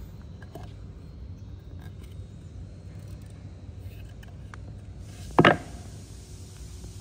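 Log debarking machine running with a steady low rumble and faint scattered clicks, broken by a single short, loud knock about five and a half seconds in.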